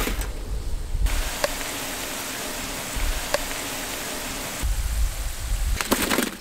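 Potato wedges deep-frying in hot oil in a wok, a steady sizzling hiss from about a second in until past the middle. A low rumble comes before and after it, and near the end there is a brief clatter of fried potato wedges dropping onto a metal tray.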